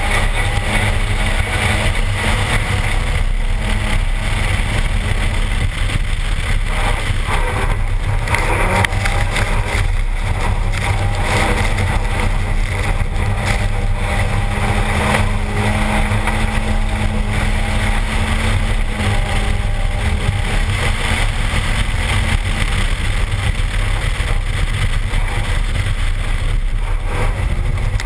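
Turbocharged Toyota 3S-GTE four-cylinder in a RAV4 running hard at speed, its pitch rising and falling with the throttle. Heavy wind buffeting on the outside-mounted camera and the hiss of tyres through water and slush run underneath.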